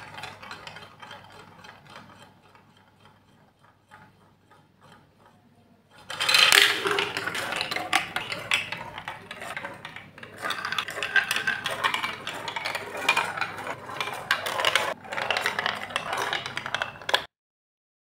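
A plastic ball rolling through a plastic marble run. It circles a funnel with a rolling sound that fades over the first few seconds. From about six seconds in it rattles loudly down plastic chutes with many small clicks, then stops suddenly near the end.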